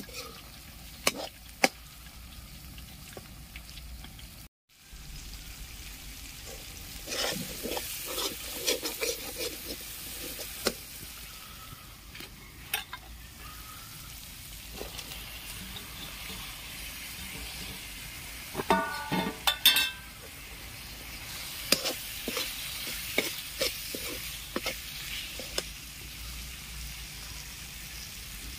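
Spiced masala sizzling as it fries in a metal kadhai, stirred with a perforated metal ladle that scrapes and knocks against the pan. The sound cuts out briefly about four and a half seconds in, and there is a quick run of knocks near twenty seconds.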